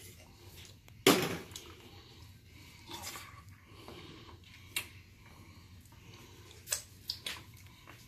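One sharp knock about a second in, the loudest sound here, then a few fainter clicks and knocks spread through the rest.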